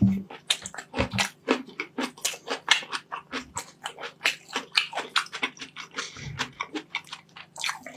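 Close-miked chewing of rice and meat: quick wet, crunchy mouth clicks and smacks, several a second, without a break.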